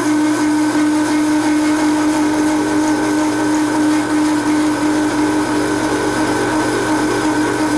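Metal lathe taking a turning cut, the cutting tool chattering against the work with a steady ringing tone.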